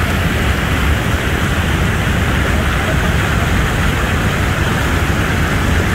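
Loud, steady rush of fast white water in the Niagara River rapids above Bridal Veil Falls.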